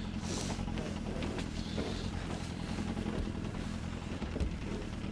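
Boat's outboard motor idling steadily, a low even rumble.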